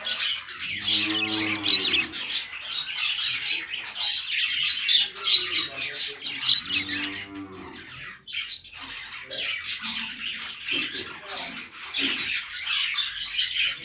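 Budgerigars chirping and warbling in a dense, continuous high chatter. A lower, drawn-out tone about a second long stands out twice, near the start and again about halfway.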